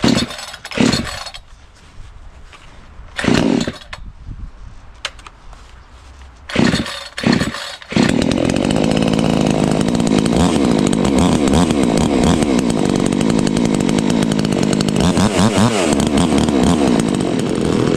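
A new two-stroke chainsaw being pull-started for the first time: several short yanks on the recoil starter in the first eight seconds. It catches about eight seconds in and runs steadily for about ten seconds, then stops abruptly.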